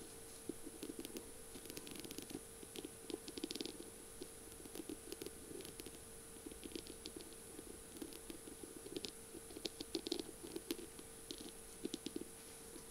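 Fingernails tapping and scratching on a beaded, rhinestone-studded feather pen: quick, irregular light clicks and rasps. A faint steady hum runs behind.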